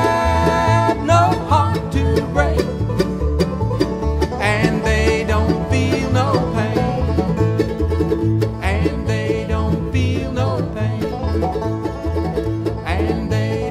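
Bluegrass band playing an instrumental passage without singing: five-string banjo, mandolin and acoustic guitars picking over a steady upright bass beat.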